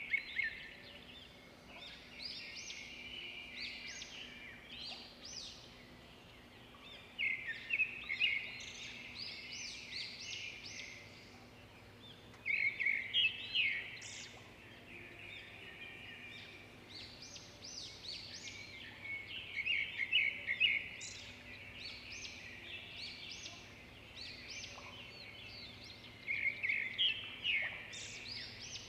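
Small birds chirping and trilling in bursts every few seconds, with quick runs of repeated notes, over a faint steady hum.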